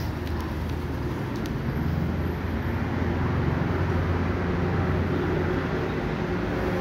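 Steady low rumble of a running vehicle engine with street noise, growing slightly louder over the first few seconds.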